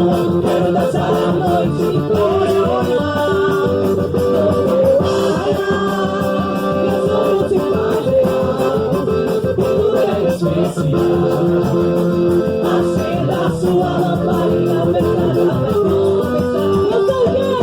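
Music for a festa junina quadrilha dance: a band playing with singing.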